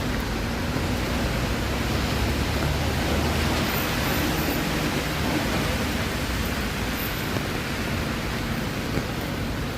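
Steady rushing noise of a wet city street in the rain, with a low rumble of traffic underneath.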